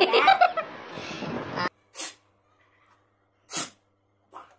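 A person's voice, muffled by a cloth held over the mouth, stops abruptly about a second and a half in. Three short, sharp breathy sounds from a person follow, spaced a second or more apart.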